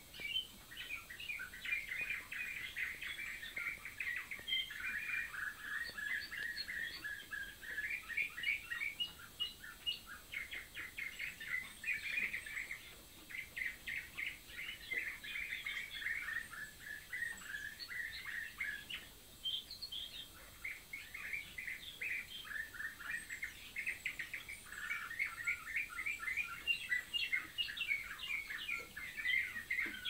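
Canary singing a long song of rapid trilled notes, breaking off briefly twice.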